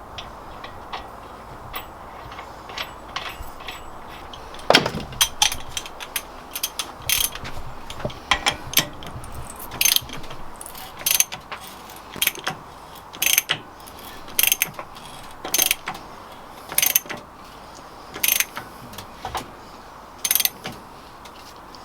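Ratchet wrench being worked in steady strokes on an engine fastener, each stroke giving a short burst of metal clicks, about one burst a second after a slower, irregular start.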